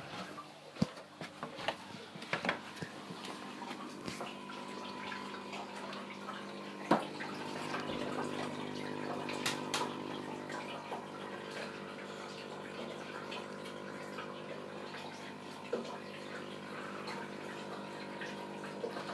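Aquarium water trickling and splashing over a steady hum from the tank's running pumps, with a few sharp clicks and knocks from handling, mostly in the first few seconds.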